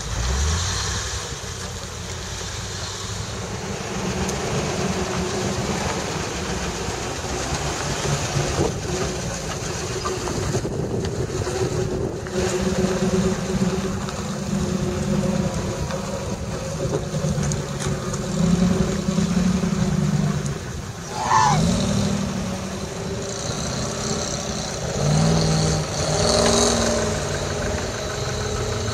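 Land Rover engines working under load, revving up and falling back, as a Land Rover Discovery and then a Land Rover pickup climb steep, muddy ruts.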